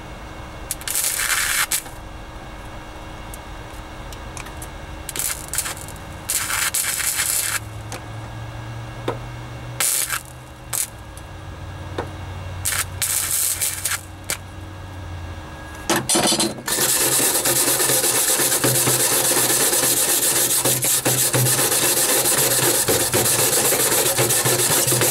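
Flux-core wire welder striking short bursts of arc, a second or so at a time with pauses between, stitch-welding a steel patch into a floor pan. From about 16 seconds in, steady loud scraping takes over as the fresh welds are scrubbed by hand.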